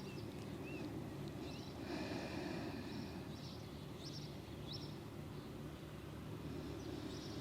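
Small birds chirping and tweeting in short scattered calls, some with quick rising glides, over a steady low hum of outdoor background noise.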